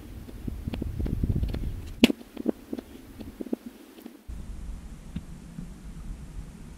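Wind buffeting the camera microphone as a low rumble, which drops out for about two seconds midway. Scattered clicks of handling noise come through, with one sharp knock about two seconds in.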